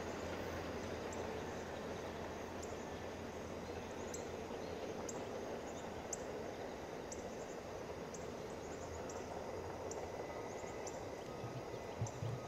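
Faint outdoor ambience: a steady low background with short, high chirps repeating roughly once a second, and a low bump near the end.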